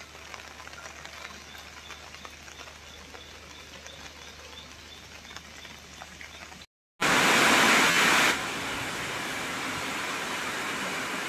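Steady hiss of rain, faint at first. The sound cuts out completely for a moment about seven seconds in, comes back much louder for about a second, then settles into a steady, louder hiss.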